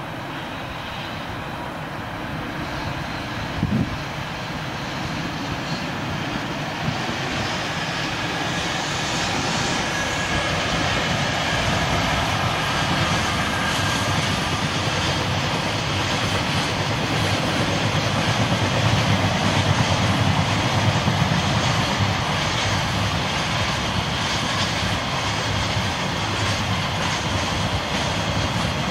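Long freight train of container wagons hauled by an EF65 electric locomotive rolling across a concrete railway viaduct: a steady distant rumble that builds over about twenty seconds and eases a little near the end. A short knock sounds about four seconds in.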